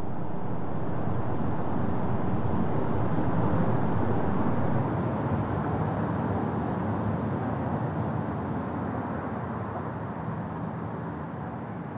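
A low, even rushing noise with no distinct tones. It swells to a peak about five seconds in, dips suddenly, then slowly fades.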